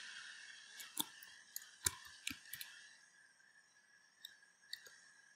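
Computer keyboard keys clicking as a few keystrokes are typed: about six quick clicks from one to three seconds in, then two fainter ones, over a faint steady hiss.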